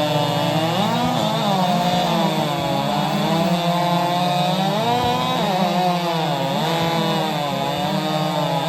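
Several modified two-stroke racing chainsaws of the 4 cubic inch class running flat out through timed cuts. Each engine's pitch dips and recovers over and over as its chain loads in the wood.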